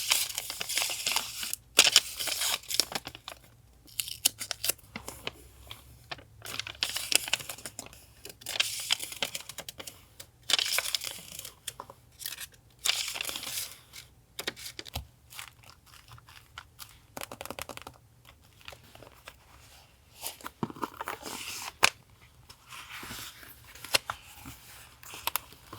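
Paper and stationery being handled for a journal collage: irregular rustling, crinkling and tearing, broken by sharp taps and clicks, with the loudest snap a little before the end.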